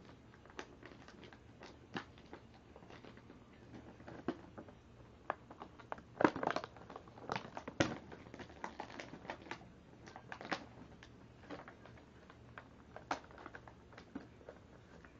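Toy packaging being worked open by hand: irregular plastic and cardboard crinkling, clicks and rustles, busiest and loudest about six to eight seconds in.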